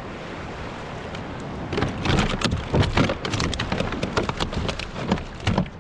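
A steady hiss of wind and water, then from about two seconds in a rapid, irregular run of splashes and knocks that stops shortly before the end.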